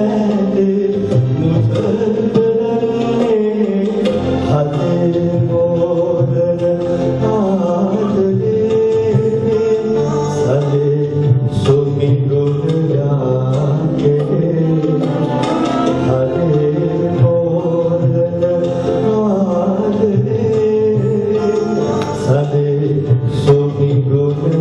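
A man singing a slow song into a microphone, held notes bending in pitch, with instrumental accompaniment that includes a violin.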